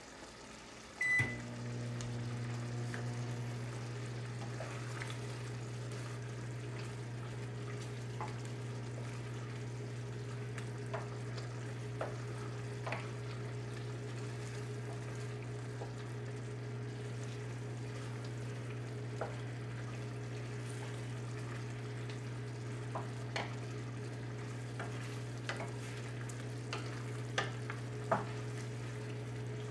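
Microwave oven beeping once as it is started about a second in, then running with a steady low hum. Faint occasional knocks of a wooden spatula stirring stew in a stainless steel pot.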